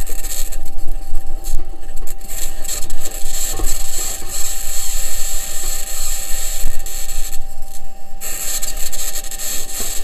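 Perseverance Mars rover driving, recorded by its onboard microphone: rattling and rubbing from the wheels and suspension on the Martian ground, under a loud, harsh, high-pitched scratching noise with a steady whine. NASA's engineers say the scratching could be either electromagnetic interference from one of the rover's electronics boxes or the mobility system interacting with the surface.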